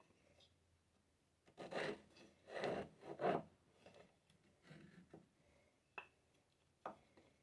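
Stanley No. 3 hand plane taking three quick, light strokes along a Mackay cedar board, each pass a short swish of the blade shaving wood, followed by softer rubbing and two light knocks.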